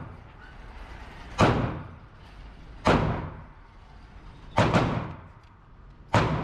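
Taurus PT99 9mm semi-automatic pistol fired at an indoor range: five loud shots about a second and a half apart, two of them in quick succession near the middle, each followed by a ringing echo off the range walls.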